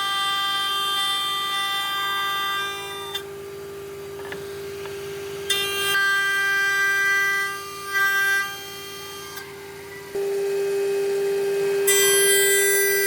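A power tool's motor running with a steady, unchanging whine; twice the sound drops quieter for a few seconds, then comes back to full level.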